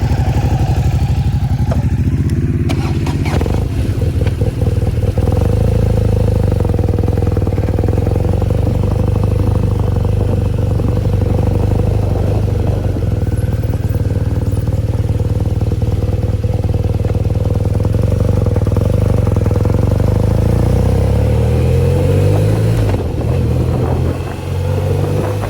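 Motorcycle engine running steadily, with a few clicks about three seconds in; near the end the engine note rises in steps as it speeds up.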